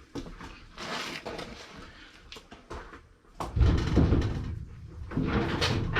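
Light knocks and scrapes on sheet metal, then a little past halfway a drill drives a self-tapping screw through the shed's sheet-metal wall, the panel rattling and buzzing loudly. It stops briefly and then runs on.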